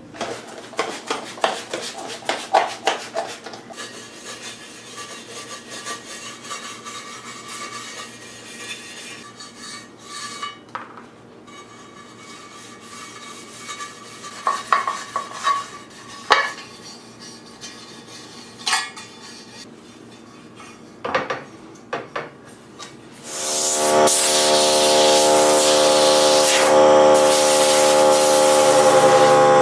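Cloth and paper towel rubbing and scraping over a car amplifier's aluminium finned casing, in short uneven strokes. About 23 seconds in, a much louder steady rushing noise with a hum under it starts and holds.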